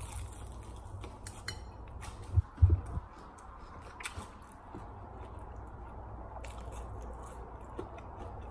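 A man biting into a fried chicken wing coated in thick hot sauce and chewing it, with small clicks of the bite and chewing in the first second or so. Two low thumps come a little over two seconds in.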